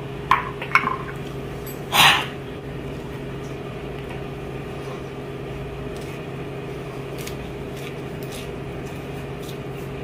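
A man drinking from a glass over a steady low hum: two small clicks near the start, then one short, sharp noisy burst about two seconds in.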